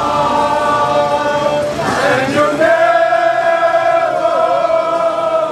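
Group of voices singing together, a few shorter notes followed by one long held note from about halfway through.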